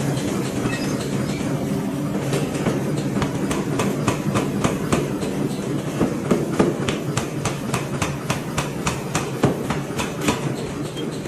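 Forge machinery running with a steady hum, joined about two seconds in by a rapid run of light, regular clicks, about four or five a second.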